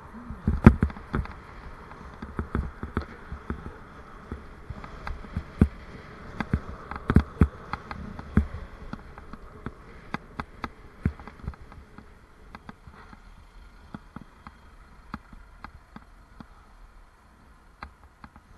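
Bicycle and its mounted camera rattling over the road surface while riding: many sharp irregular knocks over a steady buzzing hum. The knocks thin out over the last several seconds as the bike slows.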